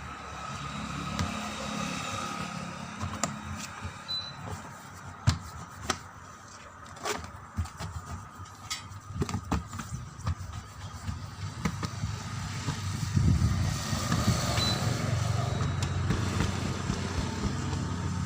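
Scattered sharp knocks and clicks over a low rumble that grows louder about two-thirds of the way through.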